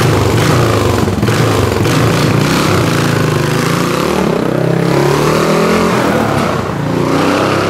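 Yamaha SR400 custom motorcycle's single-cylinder four-stroke engine revving and pulling away, its pitch climbing and dropping back several times as it accelerates.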